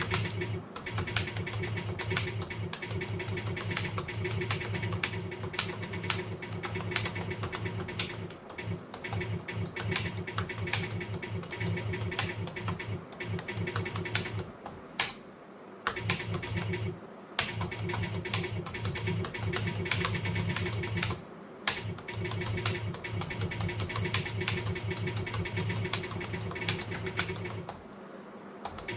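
Fast continuous typing on a computer keyboard, a rapid stream of key clicks with a few short pauses, over a steady low hum.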